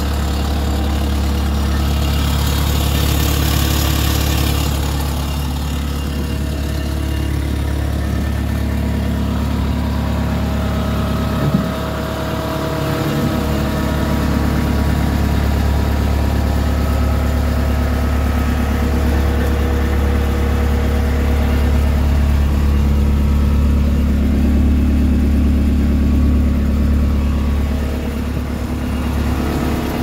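Mustang skid steer's engine idling steadily, with one short click about eleven seconds in.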